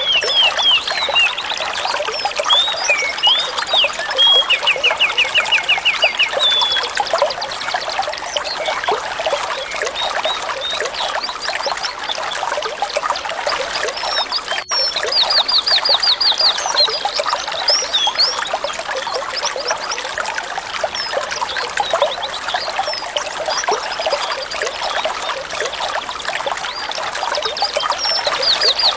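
Water trickling and pouring steadily, with small songbirds chirping and giving fast trills of rapidly repeated notes over it. The water drops out for a moment about halfway through.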